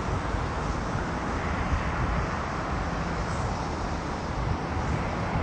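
Steady rumble and hiss of an Airbus A350's jet engines, holding an even level with no sudden changes.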